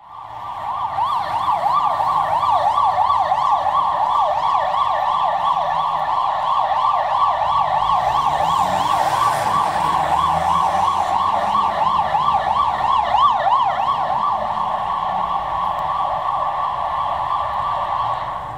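Ambulance siren sounding a fast yelp, its pitch sweeping up and down about four times a second, loud and steady as the Mercedes-Benz ambulance passes. It cuts off suddenly near the end, leaving low traffic noise.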